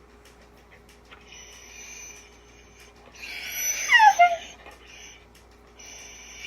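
Dog whining: a thin high whine, then a louder cry that slides down in pitch, then another high whine near the end, the sound of a dog upset at being left behind.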